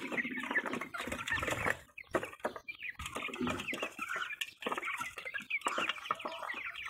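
A flock of month-old domestic poultry chirping and clucking, with many short calls overlapping.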